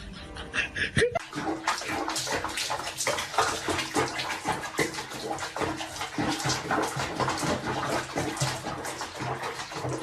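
Water splashing and sloshing in a tub, an uneven patter of small splashes that starts abruptly about a second in.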